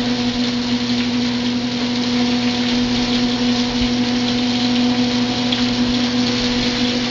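Kitchen range-hood exhaust fan running with a steady hum, over goose breasts sizzling in a hot cast-iron pan.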